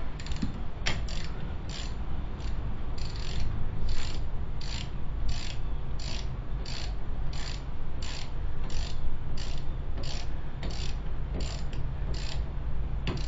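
Hand ratchet with a 13 mm socket clicking back and forth as the brake caliper bolts are run in: a steady rhythm of pawl-click bursts, about three strokes every two seconds.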